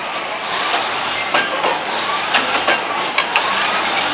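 A train's wheels running on the track: a steady rolling noise with irregular sharp clicks and knocks, and faint squealing glides from the wheels.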